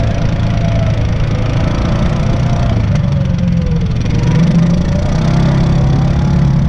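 Off-road vehicle engine running steadily under way on a dirt trail, with a whine that sinks in pitch over the first few seconds and climbs again after about four seconds.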